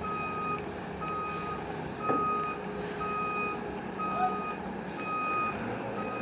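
Truck's reversing alarm beeping about once a second as the truck backs in, over the steady running of its engine. A brief squeal cuts across about two seconds in.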